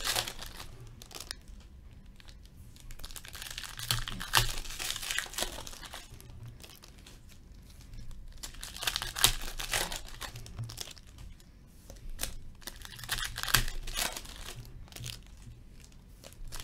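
Wrappers of 2015/16 Upper Deck Portfolio hockey card packs being ripped open and crinkled by hand. The crinkling comes in several bursts a few seconds apart, with quieter handling between.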